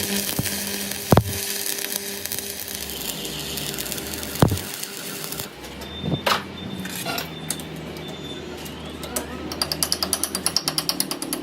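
Machine noise in a metalworking shop, with two sharp metal knocks. Near the end, a rapid rhythmic hammering sets in at about six strokes a second.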